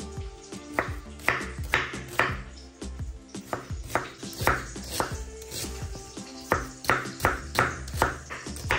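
Knife chopping on a cutting board, a run of sharp strokes about two a second with a short pause midway, over background music.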